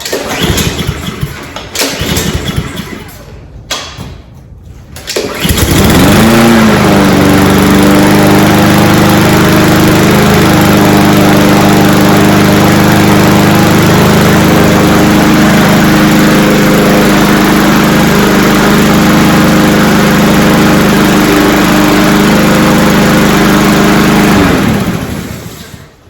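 Honda GCV190 single-cylinder mower engine on a Cub Cadet SC-700H catching about five seconds in, its pitch rising briefly before it settles into a loud, steady run, then shutting off and dying away near the end. It is a cold start after the mower has stood unused.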